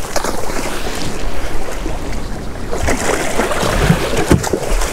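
Sea water sloshing and slapping against a small boat's hull, with wind buffeting the microphone. A few short sharp splashes or knocks come in the second half.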